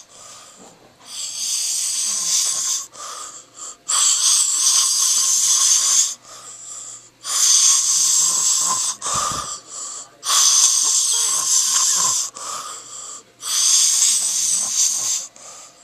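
A man snoring: about five loud, hissing snores, each a second and a half to two seconds long, coming about every three seconds.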